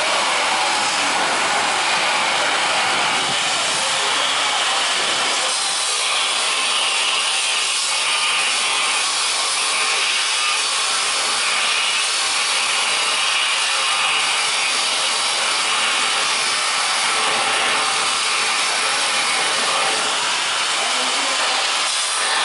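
Steady hiss-like rushing noise with no distinct events.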